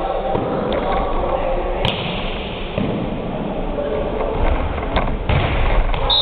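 Volleyball rally in a gym: several sharp slaps and thuds of hands hitting the ball, with one especially sharp crack about two seconds in and a cluster of hits near the end, over a background of players' voices and court noise.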